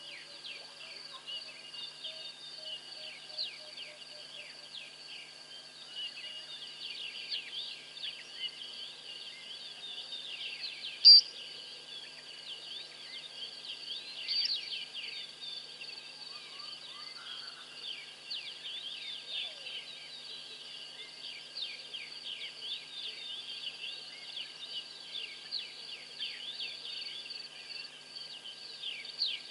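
Night chorus of crickets and other insects: a steady high trill with many short chirps over it. A single loud, sharp high chirp stands out about eleven seconds in.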